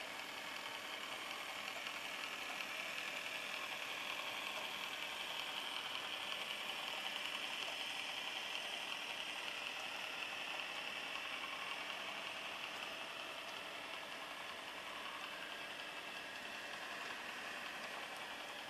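Tinplate 0m model train running past on metal track, carrying gauge 0 wagons and a coach on transporter trucks: a steady rolling noise of metal wheels on the rails, a little louder midway as the cars pass closest.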